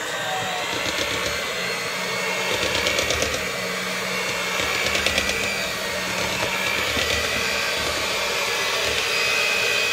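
Electric mixer running steadily at speed, beating the batter for a pumpkin loaf, with a steady whir and a faint high whine; it cuts off at the very end.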